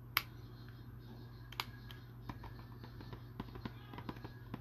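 A cardboard trading-card hanger box in its plastic wrap being handled and opened: a sharp click near the start, another about a second and a half in, then a run of small crackles and clicks as the top flap is worked open.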